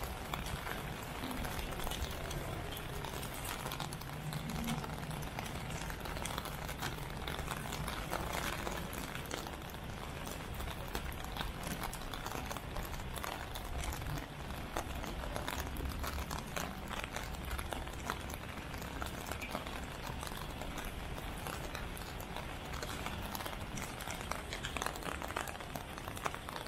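Steady rain pattering, a constant watery hiss with many small drops ticking, over wet city street ambience. A low hum sits under it for the first several seconds.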